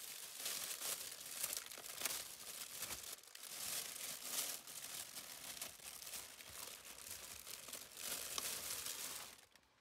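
Thin plastic carrier bag crinkling and rustling as hands rummage through it, stopping near the end.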